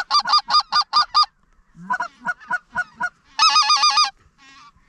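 Loud goose calling: quick runs of short honks and clucks, about six a second, in a burst at the start and another about three and a half seconds in, with scattered calls between and fainter ones near the end.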